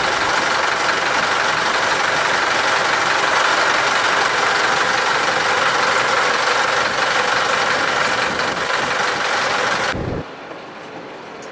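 Steady engine and road noise of a moving vehicle, a loud even rush with no distinct tones. About ten seconds in it cuts down abruptly to a much quieter level, with a brief low thump.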